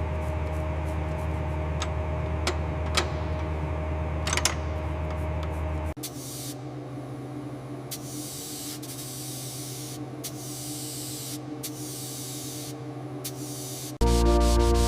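A steady low hum with a few sharp clicks, then from about six seconds in a paint spray gun hissing in repeated bursts of a second or two, each cut off abruptly, as the masked airframe is sprayed. Music comes in loudly near the end.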